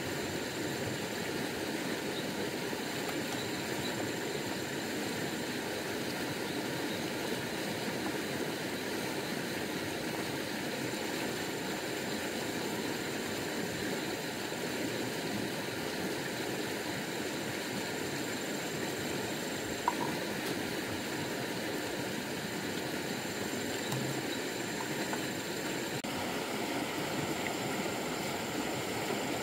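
Shallow stream rushing steadily over a rippled, stony riffle: a constant, even water noise, with a single sharp click about two-thirds of the way through.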